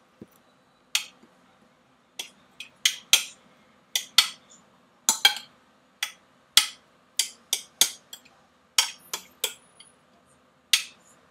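A utensil clinking against a glass baking dish as a quinoa salad is stirred: short, sharp clinks at irregular intervals, about two a second.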